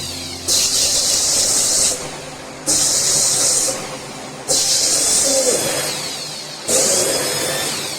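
Water hissing into a front-load washing machine through its inlet as it fills, coming in bursts of a second or two with short breaks between.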